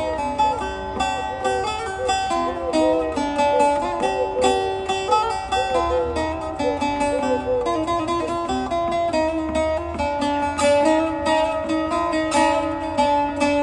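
Instrumental music of quick plucked-string melodies with bent, ornamented notes.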